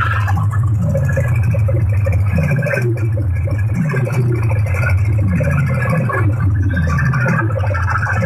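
Large outdoor DJ sound system playing loud bass-heavy music, with deep bass notes sliding down in pitch over and over, about once every second.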